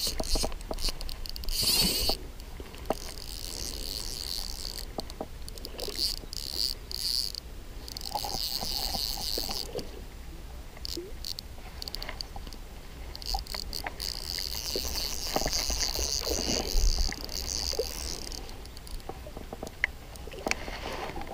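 Fly reel clicking in spells of a few seconds as line is reeled in and pulled off while a hooked trout is played, with scattered small ticks and handling noise.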